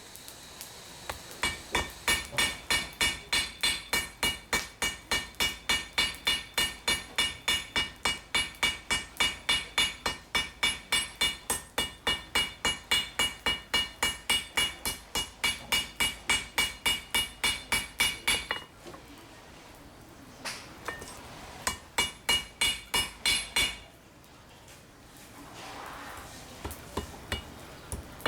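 A hand hammer forging steel on an anvil. A long, steady run of blows, about three a second, each with a bright metallic ring, stops, then a shorter run follows and a few more blows come near the end.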